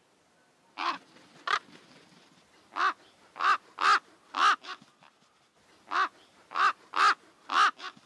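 A crow cawing: harsh, evenly repeated caws, first two, then a run of four, a pause, and another run of four.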